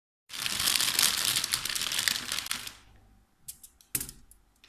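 Plastic bag of mini potatoes crinkling as a hand rummages in it for about two and a half seconds, then a few light clicks and a knock as potatoes are set down on a foil-lined baking tray.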